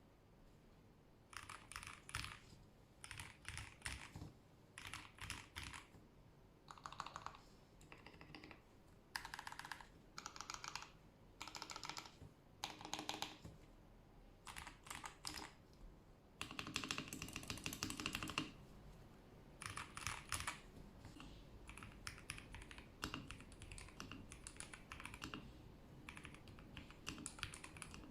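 Typing on a KBD67 Lite gasket-mount mechanical keyboard fitted with factory-lubed Gateron Milky Yellow linear switches and Akko keycaps. The keystrokes come in short bursts with brief pauses, and there is a longer run of fast typing about two-thirds of the way through.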